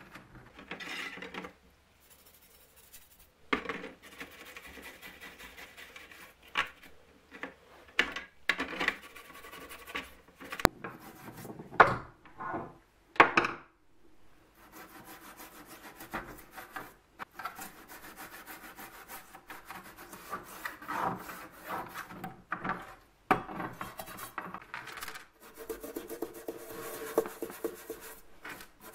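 A toothbrush scrubbing the round metal parts of an old electric cooker, the bristles rasping in stretches of quick strokes with short pauses. There are a few sharp knocks as the metal parts are handled in a plastic tray.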